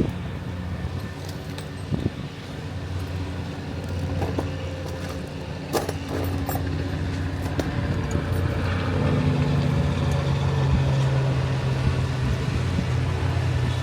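A steady low motor hum that steps up in pitch and gets louder about nine seconds in, with a few sharp clicks and clanks over it.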